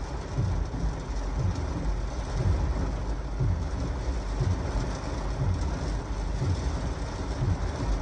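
Heavy rain drumming on a car's roof and windshield in strong gusty wind, heard from inside the car, with a low thump about once a second.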